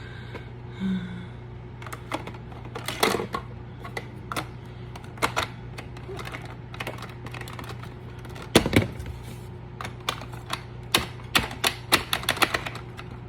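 Irregular plastic clicks and knocks from parts of a vacuum cleaner being handled, with one louder knock about two-thirds of the way through and a quick run of clicks near the end, over a steady low hum.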